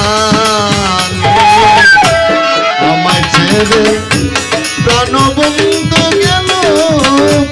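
Live Bengali Baul folk music: tabla played in a fast, even beat under a harmonium melody, with a man's singing voice in places.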